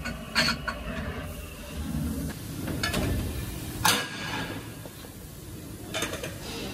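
Factory machinery running with a steady low background noise, broken by several sharp metallic clicks and clanks, the loudest about four seconds in.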